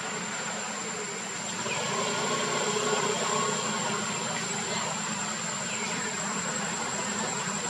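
Steady outdoor background noise with a constant thin high-pitched whine, and a few faint brief tones about two to three seconds in.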